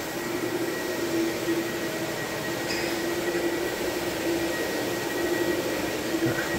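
Wet extraction vacuum running steadily with a constant hum, pulling cleaning solution and dissolved polish residue off a hardwood floor.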